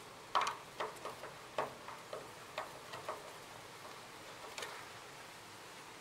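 A screwdriver working the wire terminal screws on an electric water heater's heating element: a string of small, irregular clicks and ticks, most in the first three seconds and one more about four and a half seconds in.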